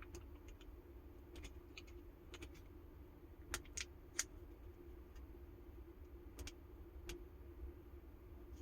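Faint scattered clicks and taps of small tattoo-machine parts being handled, with a few louder clicks about three and a half to four seconds in, over a steady low hum.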